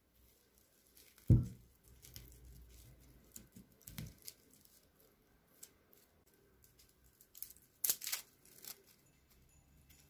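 Dry coconut husk fibres being pulled and torn off a whole coconut by hand, with scattered crackles and short tearing rips, the loudest near the end. A dull thump about a second in and a softer one a few seconds later.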